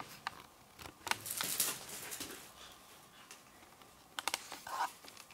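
A cat rolling on carpet, scrabbling and batting at a feather wand toy: short bursts of rustling and scratching, loudest a second or so in, and a few sharp clicks near the end.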